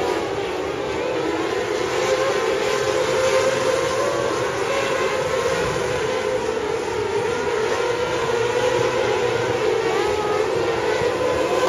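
A field of small winged sprint cars racing on a dirt oval: many high-revving engines running at once, blending into one loud, continuous whine that wavers up and down in pitch as the cars go through the turns and down the straights.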